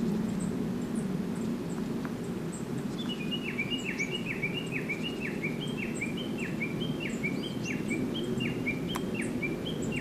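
A small songbird repeating a short two-note call about twice a second from about three seconds in, with faint high chirps from other birds, over a steady low outdoor murmur.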